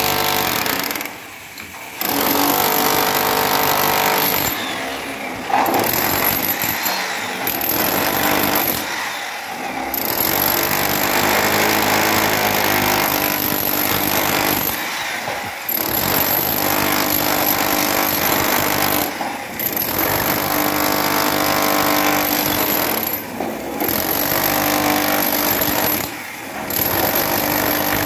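Electric demolition hammer with a chisel bit breaking up a reinforced concrete floor slab, hammering in long runs and stopping briefly every few seconds.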